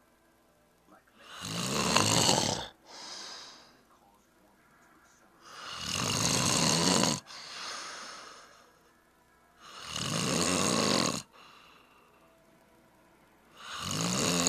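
A person snoring: four loud snores about four seconds apart, the first two each followed by a softer breath.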